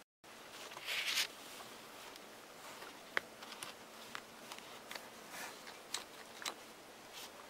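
Close handling noise from fingers on a phone and SIM card: rustling about a second in, a sharp click about three seconds in, then scattered small clicks and rubs.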